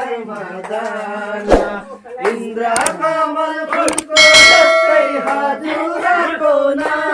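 A group of men and women singing together in chorus, with a few sharp knocks and a loud metallic clang that rings briefly about four seconds in.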